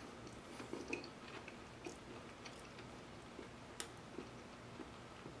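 A person chewing a mouthful of soft buttermilk biscuit, faint, with scattered small wet mouth clicks.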